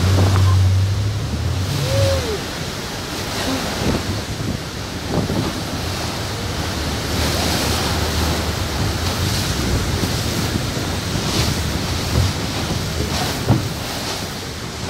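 Speed boat on a river: water rushing and splashing, with wind buffeting the microphone. Underneath is a low engine hum, strongest in the first couple of seconds.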